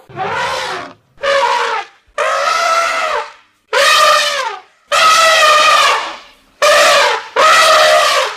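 Elephant trumpeting angrily while attacking a crocodile: about seven loud, blaring calls in quick succession, each under a second or so long, several sliding down in pitch at the end.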